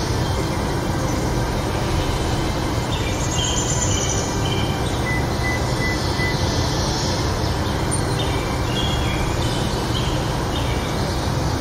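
Steady rushing noise of falling rain, with short bird calls coming again and again over it.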